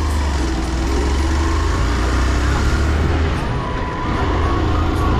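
A Hero motorcycle's engine running as the bike rides along, with wind rushing over the microphone. The sound eases briefly about three and a half seconds in, then picks up again.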